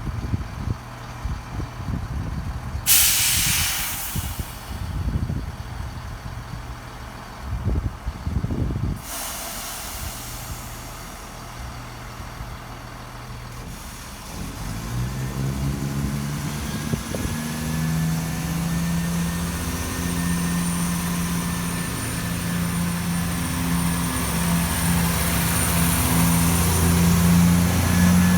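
A diesel train at a station releases its air brakes with two bursts of hiss. Its engine then throttles up, rising in pitch and settling into a steady, strengthening drone as it pulls away.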